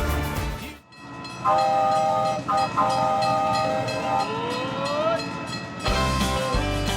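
After the song cuts off about a second in, a train sound effect plays: a chime train whistle blows a chord in two blasts over rolling rail clatter. Music comes back in near the end.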